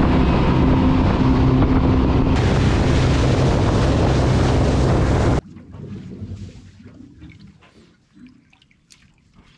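Jet boat running at speed: a steady engine drone under the rush of water and wind. About five seconds in it gives way suddenly to faint water sounds and small clicks from the boat lying still.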